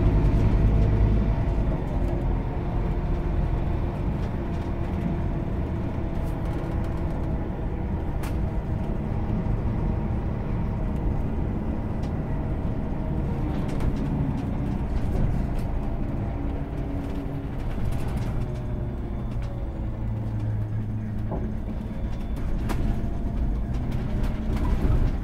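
Cabin sound of a Scania Citywide diesel-electric hybrid city bus under way, heard from the rear seats. The 9.3-litre DC09 diesel runs with its pitch stepping up and down several times as the bus drives, loudest in the first couple of seconds, with a few sharp knocks and rattles from the body.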